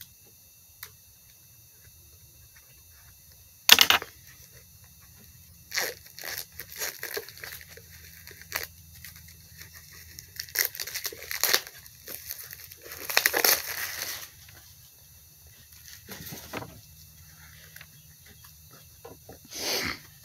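Small cardboard product box being torn open by hand, with its seal and packaging ripping and crinkling. A sharp rip comes about four seconds in, then a run of shorter tearing and scratching noises, busiest a little past the middle, and one more rip near the end.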